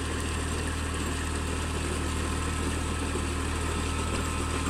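Eicher 380 tractor's diesel engine running steadily as it pulls a rotavator through a flooded paddy field.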